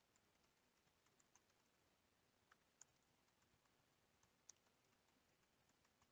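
Near silence, with faint, scattered clicks of computer keyboard keys being typed; the loudest come about three seconds and four and a half seconds in.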